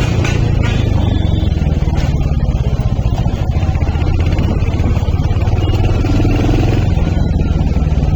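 Royal Enfield Hunter 350's single-cylinder engine and exhaust running with a steady low thump.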